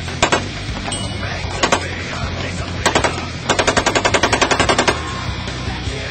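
Machine gun firing on full auto: three short bursts of two or three rounds, then a longer burst of about fourteen rounds at roughly ten rounds a second, which stops about five seconds in.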